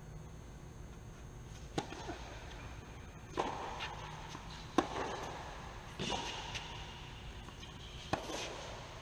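Tennis rally: a ball struck by rackets and bouncing on a hard court, about five sharp pops a second or so apart, each ringing briefly in the echoing indoor hall.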